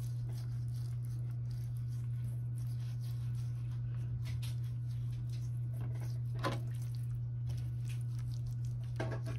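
Hands rubbing and patting a seasoned raw catfish fillet, making soft wet squishing and patting sounds, with two louder ones about two-thirds of the way through and near the end. A steady low hum runs underneath.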